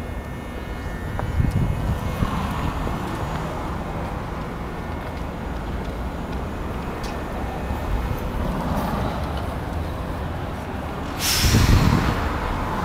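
Steady city street traffic noise. Near the end comes a loud burst of hissing air with a low rumble, which then tails off.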